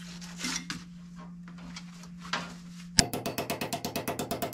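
A steady hum with faint scraping and handling noises, then a sharp click about three seconds in, followed by a fast, even mechanical pulsing of about eight beats a second from a shop machine.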